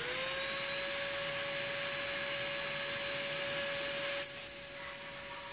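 Small shop vac motor finishing its spin-up and then running steadily with a constant whine. It is drawing air through a 6-71 supercharger rotor to suck out loose metal chips.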